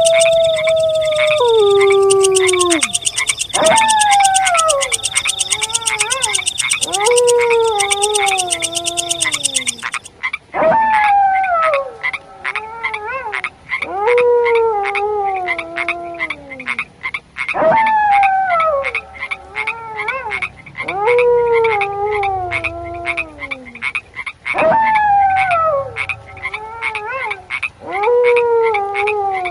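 A frog chorus croaking in a fast, dense rhythm, with a high steady insect-like trill over it that stops about ten seconds in. Over this a canine howl repeats about every three and a half seconds, each one jumping up and then sliding down in pitch; the first is held on one note before it drops.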